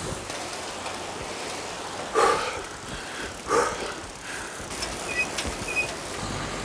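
Handbike rolling along a paved road, with steady tyre and outdoor noise. Two short louder sounds come about two and three and a half seconds in, and a few faint high chirps near the end.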